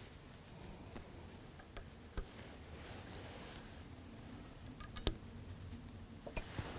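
Faint clicks and ticks of a whip finish tool being worked around the head of a fly held in a vise, tying off the thread. A few sharper clicks stand out, the loudest about five seconds in.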